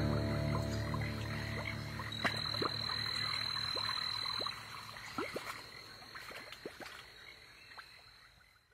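Frogs croaking irregularly as a swamp ambience while synth music fades out; the croaks thin out and the whole dies away to silence near the end.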